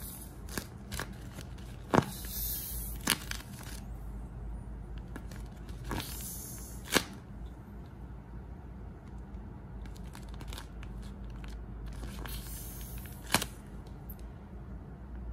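Homemade paper squishy squeezed by hand, its shiny paper skin crinkling in several bouts with a few sharp crackles.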